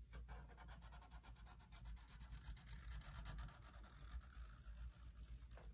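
Faint scratching and rubbing of felt-tip marker tips drawn across paper as circles are traced, over a low steady hum.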